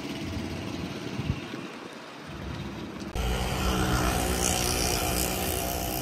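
Road traffic noise with wind on the microphone, cutting abruptly about three seconds in to a louder, steady noise.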